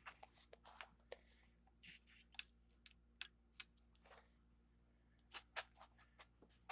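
Near silence with faint, irregular light clicks and taps over a low steady hum.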